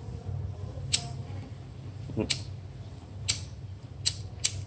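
BIC disposable lighter flicked five times, each a sharp click of the steel striker wheel grinding on the flint, throwing sparks and lighting the flame.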